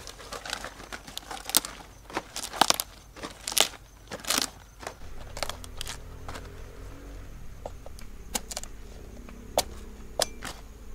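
Crisp snapping and crackling of cabbage leaves being torn off the head, thick and fast at first, then sparser, with a low steady hum underneath from about halfway.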